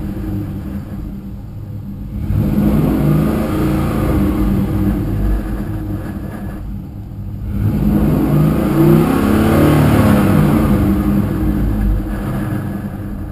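Car with a T56 six-speed manual transmission under way, its engine revving up twice with brief drops in between, like gear changes. The owner reports a rattle and grind from the T56.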